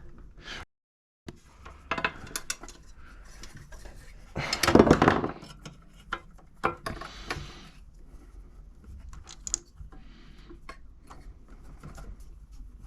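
Plastic and metal parts of an espresso machine clattering and knocking as they are fitted back together: a run of sharp knocks and clicks, with a longer, louder clatter about five seconds in.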